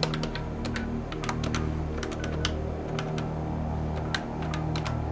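Buttons on a desk telephone's keypad pressed in quick, uneven clicks as a number is dialled, over a steady low hum.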